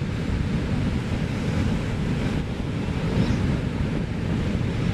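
Wind buffeting the microphone, a steady low rush, over the sound of surf on a beach.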